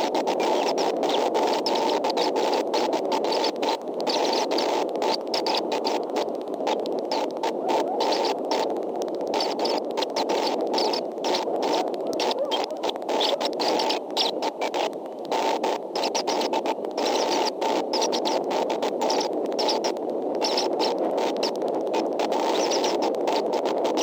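Steady static-like hiss with frequent brief crackling dropouts, the live audio feed of an eagle nest camera.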